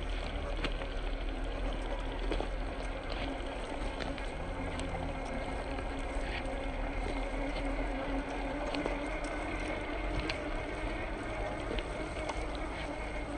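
Boom Racing BRX02 Land Rover Series III RC scale crawler driving over dry leaves: the steady whir of its electric motor and gears, with frequent small crackles and snaps of leaves and twigs under its tyres.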